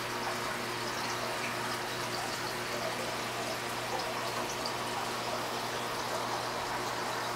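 Aquarium filtration running: a steady rush and trickle of circulating water at the tank's agitated surface, over a steady low hum from the pump.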